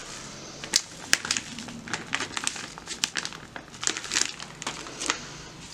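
A foil-lined soup-mix sachet crinkling in the hands as it is emptied and handled: a string of irregular crackles.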